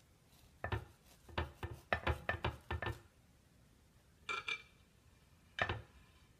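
A long kitchen knife sawing down through the crust of a warm banana bread loaf: a quick run of short, sharp rasping strokes, then two more strokes after a pause. The second to last one gives a brief metallic ring, like the blade touching the ceramic plate.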